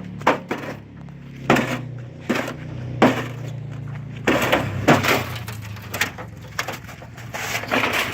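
A microwave oven being smashed: irregular blows crashing into it with a breaking, glassy clatter, with a longer crash about four to five seconds in.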